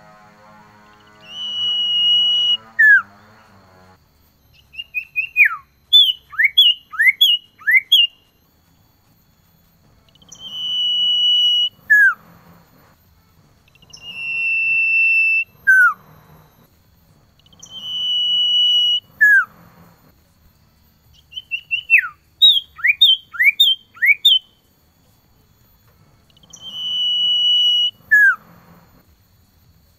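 Male common iora (cipoh) singing its call to females: a long, steady high whistle that ends in a short falling note, repeated about five times. Twice it is broken by a quick run of falling whistles.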